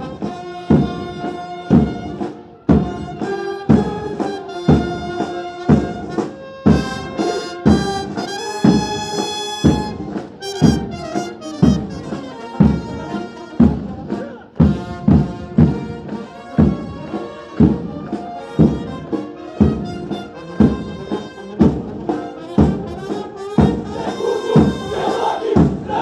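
Military march music with brass-like held notes over a steady beat, about one stroke every three-quarters of a second.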